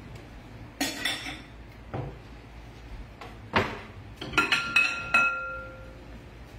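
Dishes being handled and set down, clattering and clinking: a few separate knocks, then a quick run of clinks about four to five seconds in, some leaving a short ringing tone.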